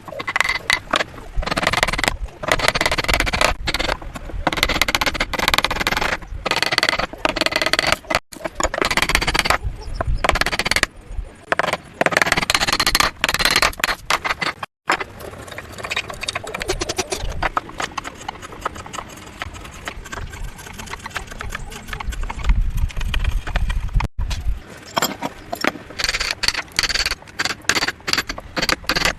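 Hand tools working wood: a run of repeated knocks and scraping strokes, broken off abruptly twice.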